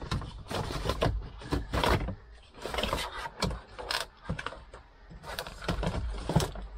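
Hard plastic centre-console trim of a 2003 Toyota Land Cruiser 120 clicking and rattling as it is pried and pulled loose from its clips, with a loud click near the end.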